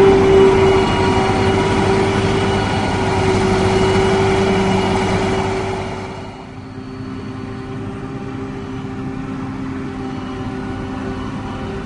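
Krone BigX 500 forage harvester running under load: a loud diesel drone with a steady whine over it. The level drops sharply about six seconds in, and the whine carries on more quietly.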